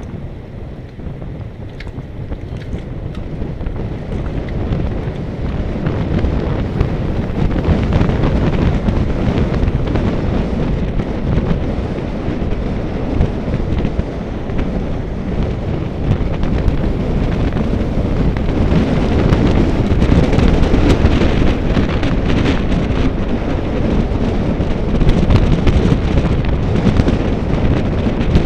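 Wind buffeting the microphone of a camera on a moving road bicycle, a loud low rumble that grows louder over the first several seconds and then holds.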